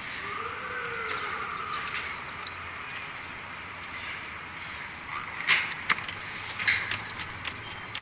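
Sharp metal clicks and clinks from a valve's gear operator on a cooling-tower pipe as its handle is worked to shut the valve, over a steady hiss. The clicks bunch together in the second half.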